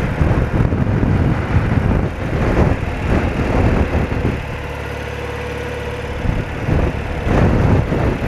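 A BMW R80RT's air-cooled flat-twin engine running at a steady speed on the road, mostly under wind buffeting the microphone. The wind eases for about two seconds just past the middle, and there the engine's steady note comes through clearly.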